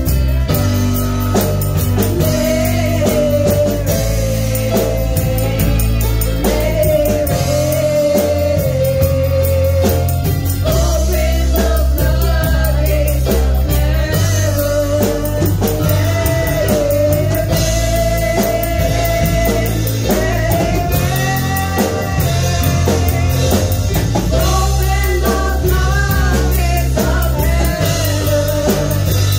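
Live worship music: women singing a held, wavering melody through microphones over a live band of keyboard, electric guitar and drums, with a strong steady bass.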